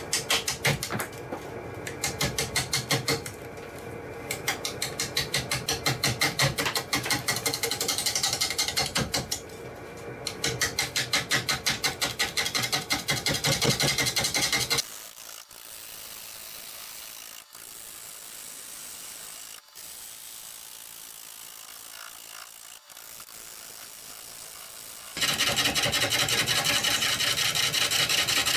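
A bowl gouge roughing a large maple bowl blank on a lathe turning at about 400 RPM. The gouge cuts in a fast, even beat of about six or seven hits a second, the tool striking the high spots of the out-of-round blank each turn. About fifteen seconds in, the cutting stops and the sound drops to a low level with a few clicks; some ten seconds later a steady cut without breaks begins.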